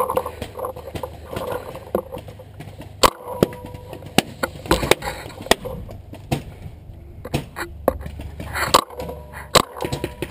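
Paintball gunfire: sharp pops at irregular intervals, some single and some in quick clusters.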